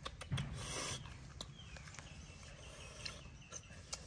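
Eating cooked snails: sharp clicks of snail shells and toothpicks, with a short slurp about half a second in as the meat is sucked out.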